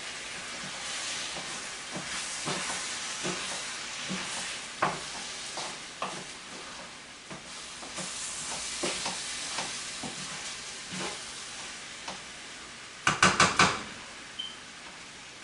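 Orzo pasta sizzling in hot bacon grease and white wine as the pot is deglazed, with a spoon stirring and knocking lightly against the pot. About 13 seconds in comes a quick run of four or five sharp taps.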